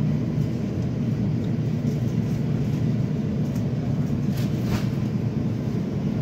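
Steady low rumble of supermarket background noise, such as refrigeration and ventilation, with a brief hiss about four and a half seconds in.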